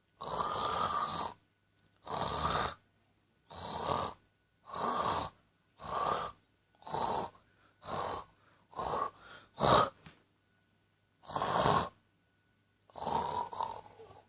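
A person fake snoring: about a dozen deliberate snores with short silent gaps between them. They come quicker and shorter a little past the middle, then two longer snores near the end.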